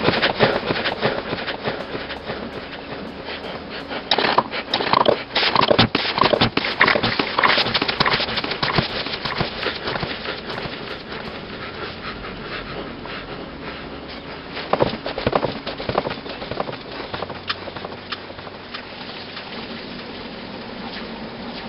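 Irregular scraping and clicking as a bare diecast metal toy car body is worked by hand against a cutting mat. The noise is loudest about four to nine seconds in and again around fifteen seconds, then tails off.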